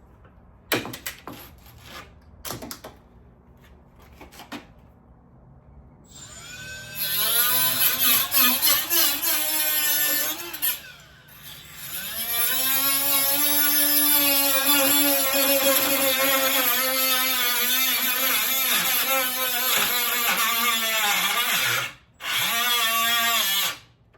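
Handheld power tool cutting a body panel, its motor pitch wavering under the load of the cut. It runs in three stretches: about four seconds, then about ten, then a short burst near the end. Light knocks and clicks of handling come before it starts.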